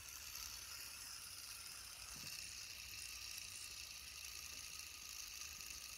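Fidget spinner spinning between the fingers: a faint, steady, high whirring hiss from its bearing.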